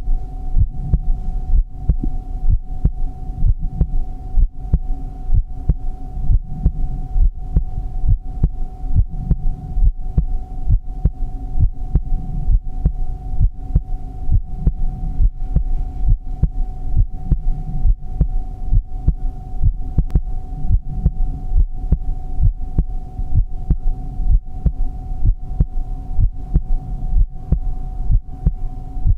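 Heartbeat sound: a steady, even rhythm of low thumps over a constant hum.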